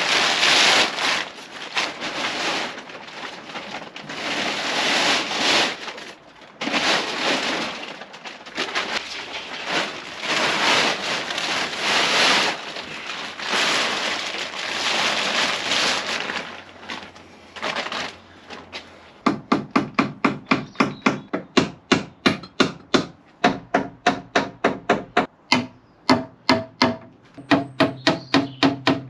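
Plastic tarpaulin rustling and crinkling in loud swells as it is pulled and spread over a timber frame. About two-thirds of the way in it gives way to a hammer driving nails into the timber, about two quick ringing blows a second.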